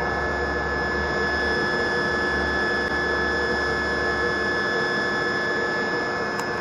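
A pump running steadily: a constant mechanical hum with a thin high whine held at one pitch. A low rumble under it drops away a little past halfway.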